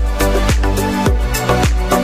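Background electronic dance music, with a steady kick drum about twice a second over a deep bass line.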